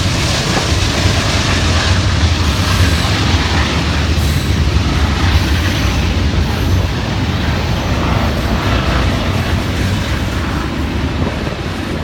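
Freight train passing: diesel locomotives running with a steady low drone over the noise of steel wheels on the rails, easing off a little over the last few seconds.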